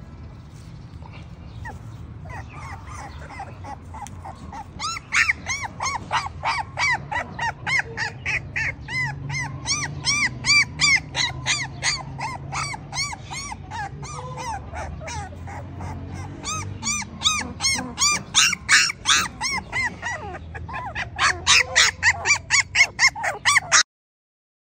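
Young German Shorthaired Pointer puppies squealing and whining: short high cries, several a second, starting about five seconds in and cutting off suddenly near the end.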